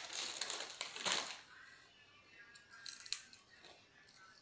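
A child crunching a potato chip: a dense crackle for about the first second, then quieter chewing with a few sharp crunches around the middle.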